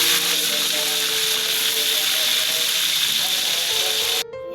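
Food frying in hot oil in a pan, a steady sizzle over background music. The sizzle cuts off suddenly near the end, leaving only the music.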